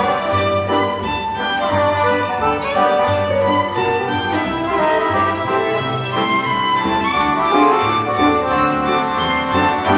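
Classical music played on bowed strings, with the violin most prominent.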